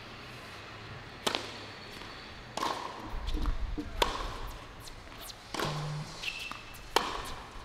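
Tennis serve and rally on a hard court: a tennis ball is struck back and forth by racket strings in about five sharp hits, roughly a second and a half apart.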